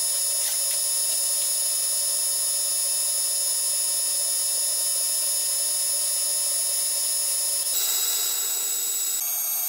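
Metal lathe running with a steady high-pitched whine over a faint hiss while a tool turns down a mandrel. The whine changes pitch abruptly twice near the end.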